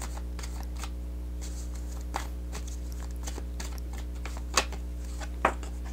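A tarot deck being shuffled and handled by hand: scattered light clicks and flicks of the cards, with two sharper snaps near the end, over a steady low hum.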